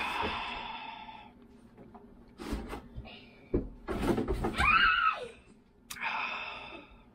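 A man drinks a homemade flu-remedy drink from a glass jar and lets out three loud wordless cries of distaste: one at once, a wavering one around the middle amid gulping noises, and one near the end.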